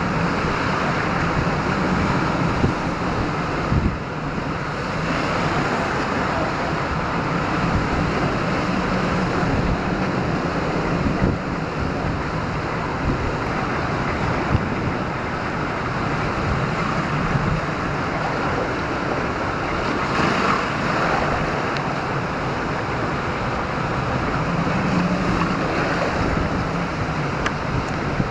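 Hurricane storm surge churning and spilling over a wooden seawall railing: a steady, loud rush of surf and splashing water, with wind gusting on the microphone.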